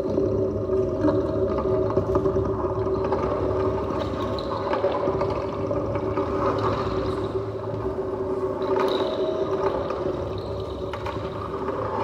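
Double bass played through a looper, building a steady drone of several held tones layered over a low rumble.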